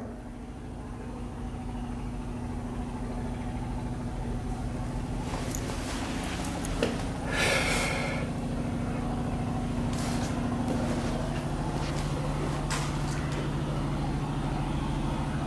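A steady low motor hum, slowly growing louder, with a brief rustle about seven seconds in and a few faint clicks.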